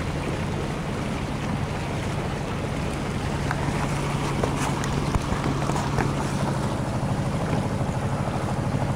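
Westerly Centaur yacht's inboard engine running steadily as the boat motors along, over a wash of water and wind noise, with a few light knocks in the middle.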